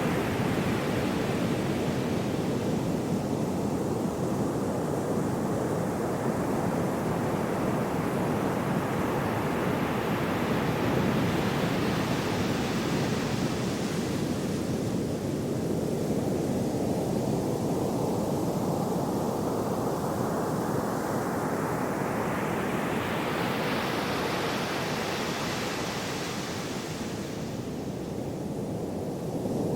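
Gentle sea waves washing ashore as a steady rush of surf. In the second half one wave's hiss builds slowly over several seconds, then falls away suddenly near the end.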